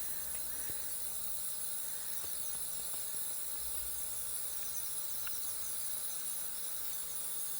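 Steady high-pitched hiss of background room tone or recording noise, with a low hum and a few faint clicks.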